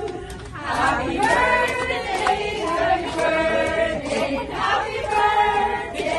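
A group of voices singing together in long held notes.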